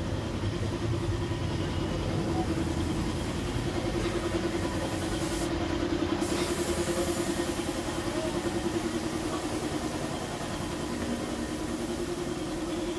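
A motor running steadily, an even low hum that does not change.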